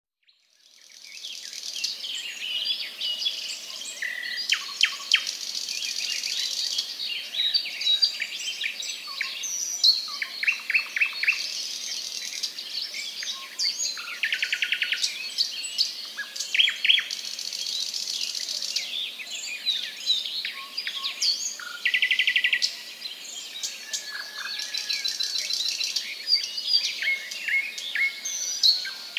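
Birds chirping and singing together: many short chirps and whistled notes, with fast rattling trills every few seconds. It fades in over the first second.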